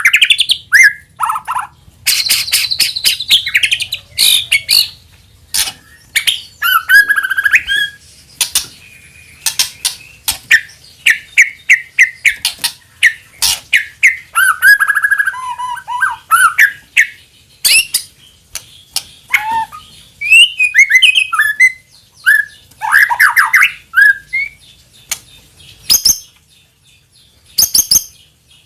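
White-rumped shama (murai batu) singing: a varied run of loud sharp clicking notes, quick trills and whistled phrases that slide up and down, broken by short pauses.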